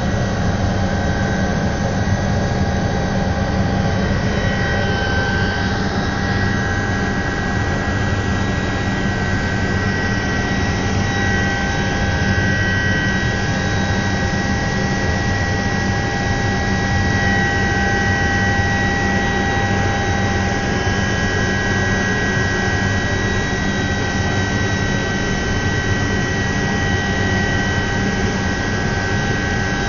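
Cabin noise of an IAR-316B (Alouette III) helicopter in cruise flight: the steady whine of its Turbomeca Artouste turboshaft engine, several high tones held level, over a steady low drone.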